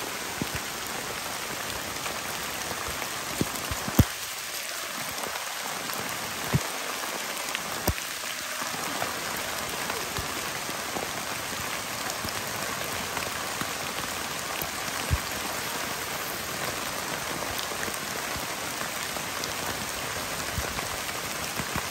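Steady rain falling on the forest and a nylon tent, an even hiss with a few louder single drops or taps now and then, the loudest about four seconds in.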